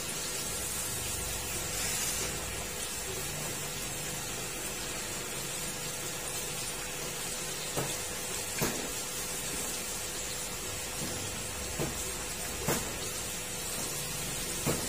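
Flour-coated crab pieces deep-frying in hot oil in a wok: a steady sizzling hiss, with a few short sharp clicks over the second half.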